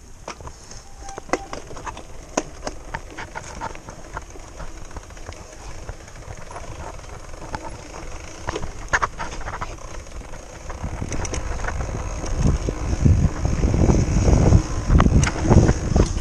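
Mountain bike riding down a dirt trail: tyres rolling over the ground with scattered rattles and knocks from the bike. A bit past the middle, low wind buffeting on the microphone comes in and grows louder as the bike picks up speed.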